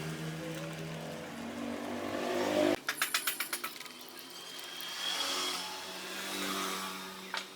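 A small electric motor running steadily, cutting off abruptly about three seconds in, followed by a quick rattle of about ten light clicks and then a fainter steady hum.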